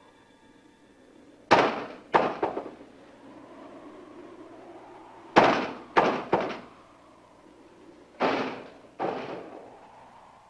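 Loud, sharp bangs in three groups, three, three and then two, each ringing out briefly.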